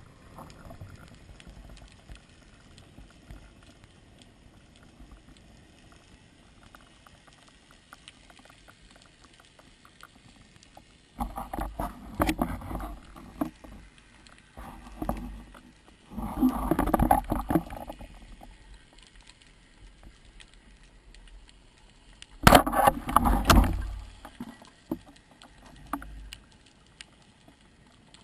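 Underwater sound on a spearfishing dive: a faint crackling hiss, broken three times by loud spells of rushing, bubbling water noise, the longest about eleven seconds in and the last near the end.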